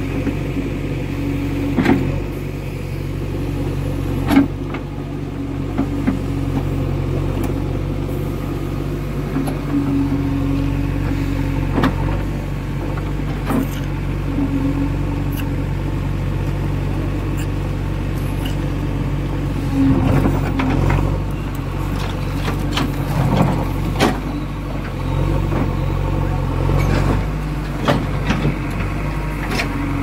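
JCB 3DX backhoe loader's diesel engine running steadily, with a higher tone that comes and goes every few seconds and scattered sharp knocks.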